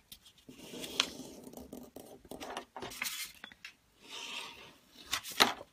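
A sheet of printed paper rustling and crackling as it is folded diagonally and creased by hand, with a few sharp clicks.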